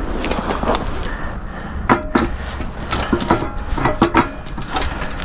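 Irregular knocks and clunks with rustling as a portable hunting seat is handled and shifted into place on rough ground.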